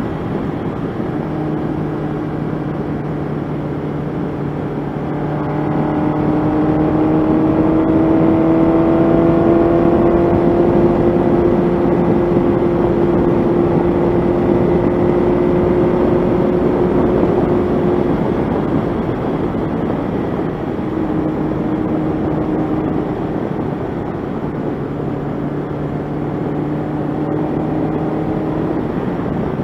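1985 Honda CB700SC Nighthawk's inline-four engine pulling along at road speed, with wind rush over it. About six seconds in, the engine note climbs slowly and gets louder as the bike speeds up. It holds there, then eases back a little over halfway through and runs steady again.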